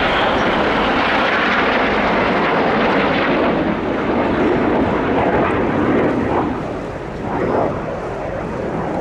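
BAE Hawk T1 jets of the Red Arrows passing overhead: loud, steady jet engine noise that eases off about two-thirds of the way through as they move away.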